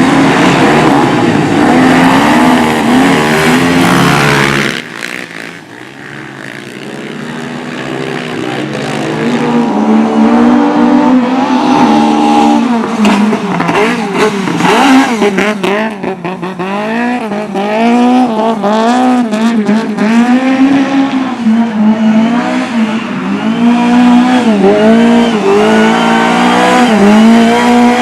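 Several speedway racing motorcycle engines revving hard and easing off in repeated rising and falling swells as they race on a cinder track. The sound cuts off sharply about five seconds in and quieter engines build back up to full volume over the next few seconds.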